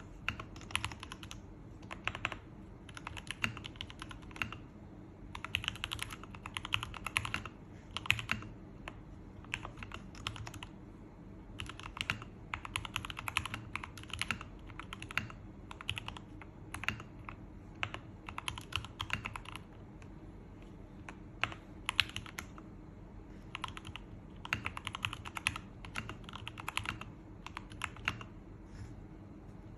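Typing on an Akko ACR59 mechanical keyboard: bursts of rapid key clacks with short pauses between them, and a few strikes standing out louder.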